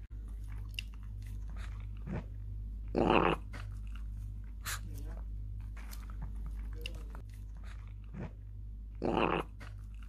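Shih Tzu burping loudly twice after eating kibble, each burp short, about six seconds apart, with small wet lip-licking clicks in between.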